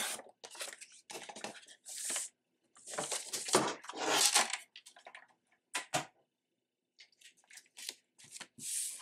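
Sliding paper trimmer cutting a strip of patterned paper, then paper rustling and crackling as the trimmer and pages are moved about. A sharp knock comes about six seconds in.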